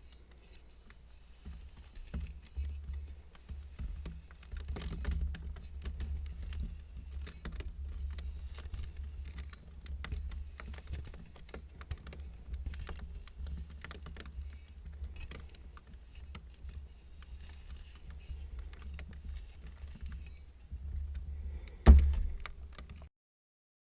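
Kinetic sand being cut and scraped, a dense, crisp crackle of small clicks over a low handling rumble. A single loud thump comes about 22 seconds in, and then the sound cuts off.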